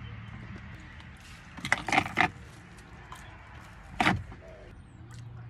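Short, loud crunching bites into a bread roll with handling noise: a quick cluster about two seconds in and one more about four seconds in, over the low steady hum of a car's cabin.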